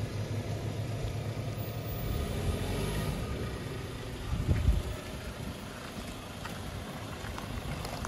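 Land Rover Defender on 35-inch tyres crawling slowly over sandy ruts, its engine running at low revs with a steady low rumble. A brief louder surge of the engine comes about four and a half seconds in.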